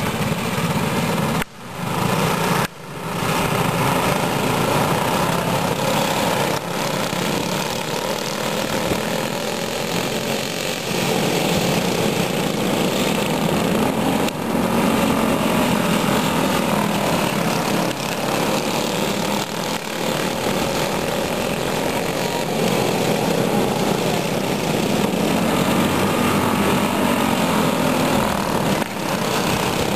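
A pack of dirt karts with Briggs & Stratton flathead single-cylinder engines racing, several small engines buzzing together and rising and falling in pitch as they go around. The sound cuts out briefly twice near the start.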